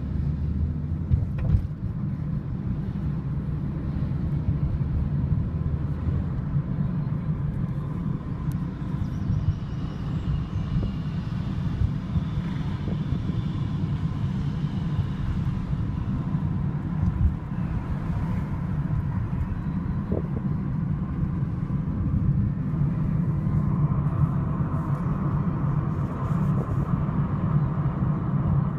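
Steady low engine and road rumble of a car heard from inside the cabin, with a few brief knocks.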